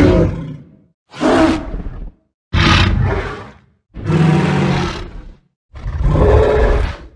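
Tyrannosaurus rex roar sound effects: five separate roars in a row, each about a second long, with short silences between them.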